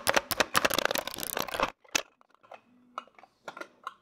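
Hand food chopper mincing a shallot: a fast clatter of clicks for about a second and a half, which stops abruptly, followed by a few scattered clicks.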